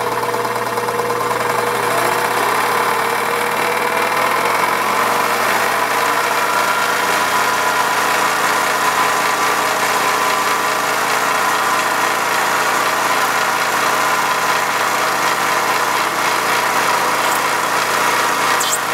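Mini metal lathe running, its spindle turning a PVC pipe against the cutting tool, with a knocking from the gear train: the drive gears stripping out.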